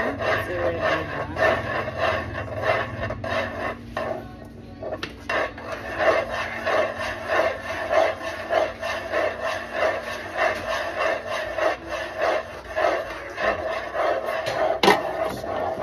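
Thick maja blanca mixture being stirred in a pan, a utensil scraping across the pan in a steady rhythm of about two strokes a second, with a short pause about four seconds in. There is a single sharp knock near the end.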